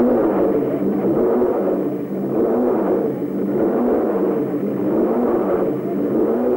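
A racing car engine running and being revved, its pitch rising and falling every second or two.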